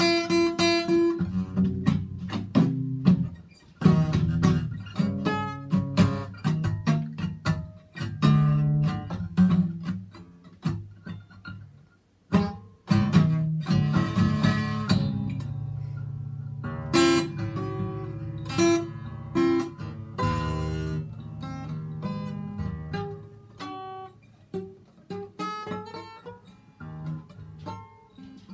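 Acoustic guitar played solo, a mix of picked single notes and strummed chords. The playing breaks off briefly about twelve seconds in and resumes with a strum, then turns quieter and sparser near the end.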